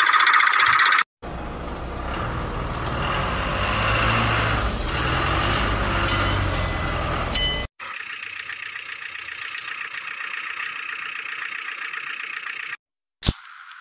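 Small motors running, heard in separate stretches that cut off suddenly: a rough, noisy run with a low rumble for several seconds, then a steadier high whine, and a single sharp click near the end.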